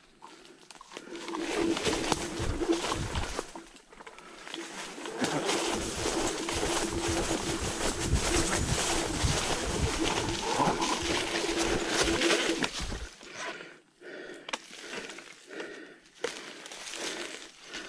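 Dragon GTR v2 electric scooter riding over rough, uneven forest ground: a steady motor whine with uneven rumble and knocks from the bumps, briefly dipping about four seconds in. The motor stops about thirteen seconds in, leaving quieter scattered rustling and scuffing.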